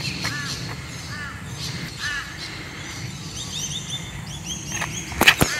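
Wild birds calling outdoors: short arched chirps repeating, a lower series early on and a quicker run of higher notes later. About five seconds in, a few sharp, loud knocks cut across the calls.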